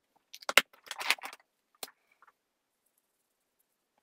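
A few sharp plastic clicks and a short rattle from alcohol blending markers being handled, their caps pulled off and snapped on.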